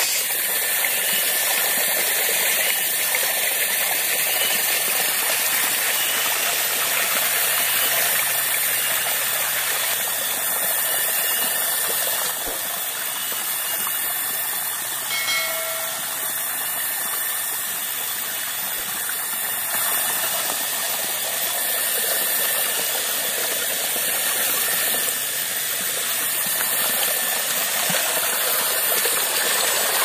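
A small forest stream rushing over rocks, a steady hissing wash of water. A few faint chirps come through near the start and again about halfway.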